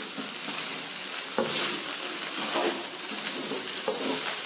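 Egg fried rice sizzling in a metal kadai on high heat while a slotted metal spatula stirs and tosses it. A steady hiss runs throughout, with a scrape of the spatula against the pan roughly every second.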